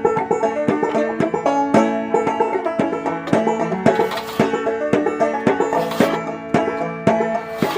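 Instrumental background music of quick plucked-string notes.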